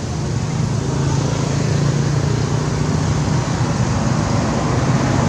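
A motor vehicle's engine running steadily: a low hum over an even rushing noise, the hum easing off a little after about three seconds.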